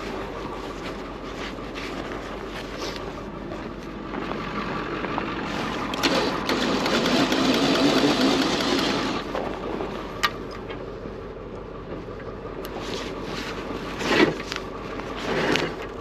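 Tow truck engine running steadily. A louder rush of noise comes from about six to nine seconds in, and a few sharp knocks near the end.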